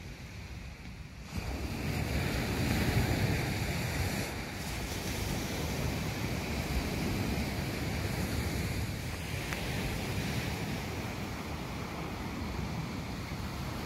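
Wind rumbling on the microphone over the steady wash of small waves breaking on the shore; the wind picks up sharply about a second in.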